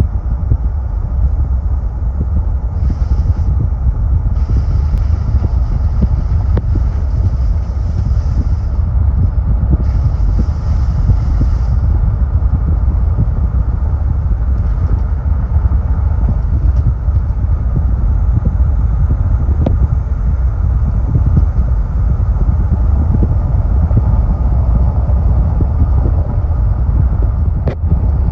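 2018 Ford F-150 4x4 driving: a steady low rumble of engine and road, with a few spells of higher hissing noise in the first twelve seconds and a sharp click near the end.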